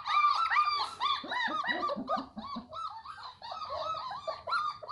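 A litter of German shepherd puppies whining and yelping: many short, high, arching calls in quick succession, several a second and overlapping, thinning briefly a little past the middle.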